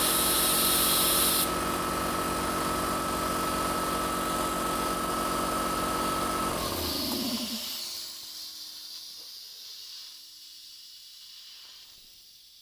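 Single-phase 240 V shop air compressor starting up and running, with a hard hiss of compressed air and water blasting out of the tank drain through the solenoid valve. The hiss cuts off suddenly after about a second and a half as the timer closes the valve. About six and a half seconds in the compressor stops, its pitch dropping as it winds down and fades out.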